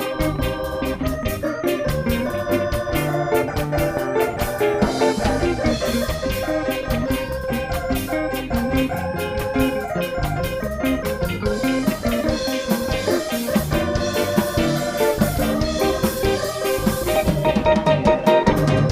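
Live band playing an organ-led instrumental, a Hammond-style organ holding and riffing over a drum beat.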